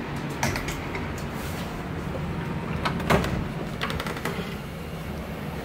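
A door being handled and opened: a few short clicks and knocks, the loudest about three seconds in, over a steady low hum.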